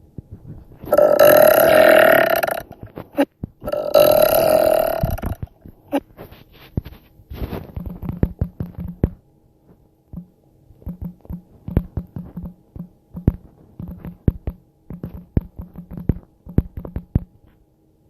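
A woman burping loudly, two long belches one after the other, each lasting well over a second. A run of soft, short clicking sounds follows for the rest of the stretch.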